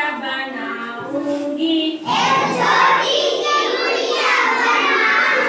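Children singing a Hindi action rhyme: a lone voice at first, then the whole group joins in loudly about two seconds in.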